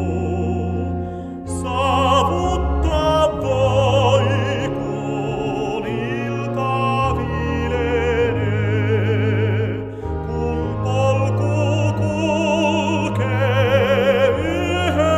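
Tenor singing a Finnish hymn with a wide vibrato, over a Hauptwerk virtual pipe organ (Giubiasco parish church sample set) holding sustained chords. The voice pauses briefly twice, between phrases.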